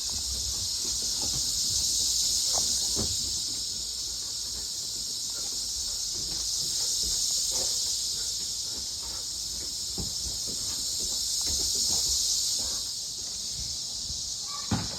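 Dense chorus of Brood XIX 13-year periodical cicadas, males singing, a steady high-pitched buzz that swells and fades in slow waves every five seconds or so. A sharp click sounds just before the end.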